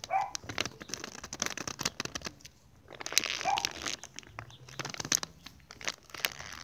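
Plastic bag of cornstarch crinkling and rustling as it is tipped and shaken, the powder pouring out into a plastic lid, with many small clicks and crackles in two longer rustling spells.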